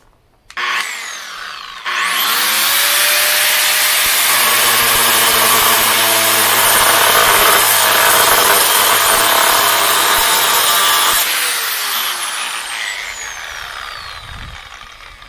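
Metabo angle grinder with a cutoff wheel, running on its newly replaced power cord. The motor whines up to speed, then bites loudly into a workpiece for about nine seconds, and after the cut it winds down with a falling whine near the end.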